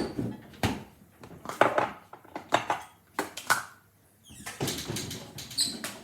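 Kitchen clatter: dishes and utensils being handled, a string of knocks and clinks with a short ringing clink near the end.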